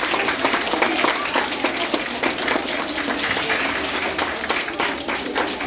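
Sustained applause from a crowd of seated schoolchildren: many hands clapping at once, steady and dense.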